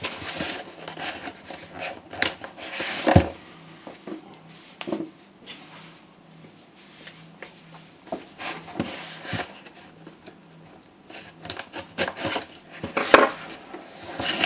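A small taped cardboard box being handled on a tabletop: scattered knocks, taps and rubbing as it is turned and slid. There is a sharp knock about three seconds in, a quieter stretch in the middle, and a busier run of knocks and scraping near the end with another sharp knock.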